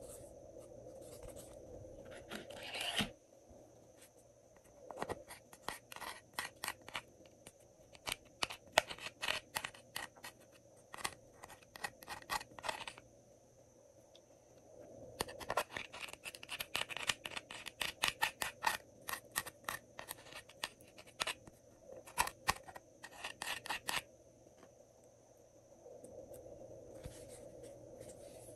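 Thin metal spatula scraping and picking makeup out of the small plastic pans of an eyeshadow and lip gloss palette: a scrape about three seconds in, then two long runs of quick, sharp scratches and clicks.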